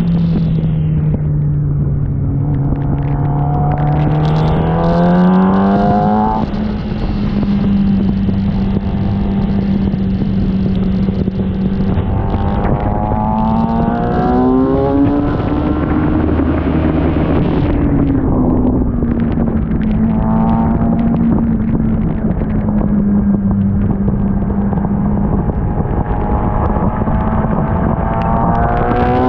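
Sport motorcycle engine revving up and easing off several times, its pitch climbing in repeated sweeps, over a steady rushing noise.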